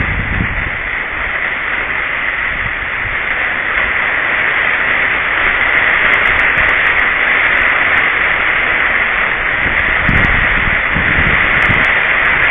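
Heavy rain and strong wind of a summer storm: a loud, steady hiss heard through a WiFi camera's microphone, with low rumbles of wind hitting the microphone near the start and again near the end.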